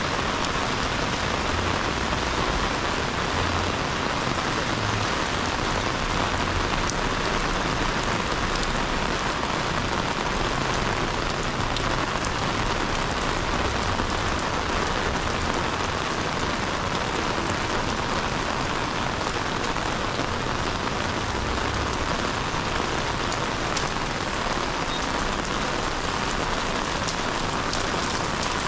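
Heavy rain pouring down on a city street: a steady, dense hiss.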